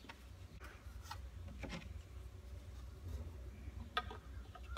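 Faint footsteps and a few light clicks of small parts being handled, over a low steady hum of room tone.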